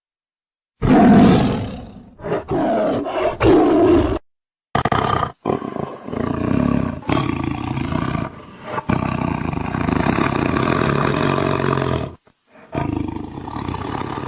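Tiger roaring repeatedly, the loudest roar about a second in. The roars come in spliced clips broken by sudden stretches of dead silence.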